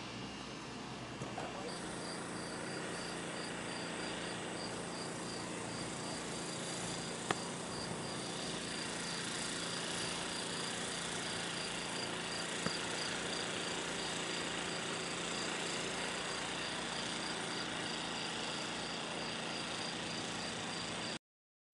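A cricket chirping steadily outdoors, about two to three chirps a second, over a faint low steady hum, with the sound cutting off suddenly near the end.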